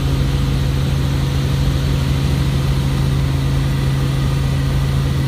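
Helicopter engine and rotor noise heard inside the cabin in flight: a loud, steady low drone.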